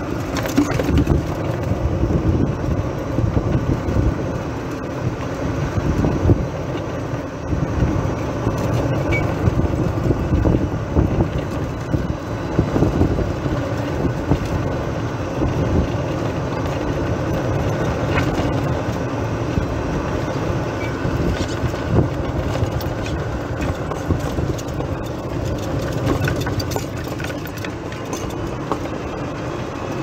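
Golf cart being driven: its drive motor running steadily with tyre and road noise and occasional light clicks and rattles.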